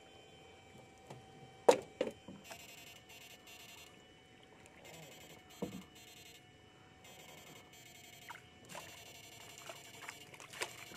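Electrofishing shocker buzzing in pulses, in two stretches of a few seconds each. A loud sharp snap comes about two seconds in, with a few softer knocks and splashes as the net works the water.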